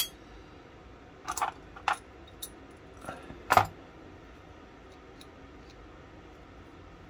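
Small steel lock parts of an antique boot pistol clinking and clicking against each other and the bench as they are handled: a few sharp metallic clicks, the loudest about three and a half seconds in, then a couple of faint ticks.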